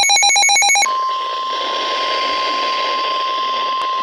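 A rapidly pulsing, ringing electronic tone cuts off about a second in. It gives way to a single steady alert tone of about 1050 Hz over radio hiss: the NOAA Weather Radio warning alarm tone that comes before a severe weather warning.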